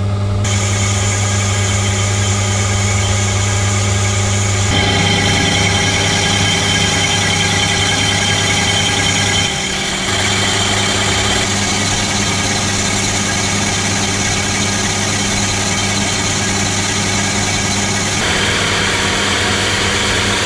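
Colchester lathe running at 192 RPM with a steady gear hum, taking a light boring cut in a cast-iron brake disc. The sound grows busier about five seconds in and dips briefly around ten seconds.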